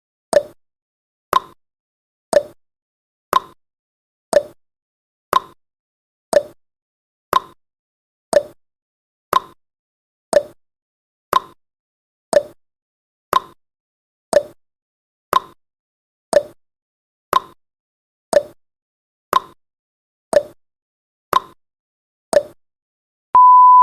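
A countdown timer's tick sound effect: one short, sharp tick each second, alternating between a lower and a higher pitch like a tick-tock. Just before the end a steady electronic beep starts, the alarm that marks the timer reaching zero.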